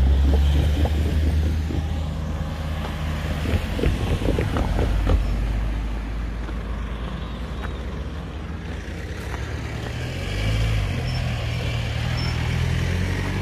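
Road vehicle engines running close by, a deep steady hum; the engine note shifts about ten seconds in. A few light knocks come around four to five seconds in.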